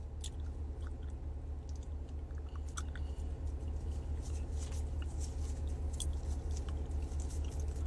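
Steady low background hum with faint scattered clicks and ticks over it.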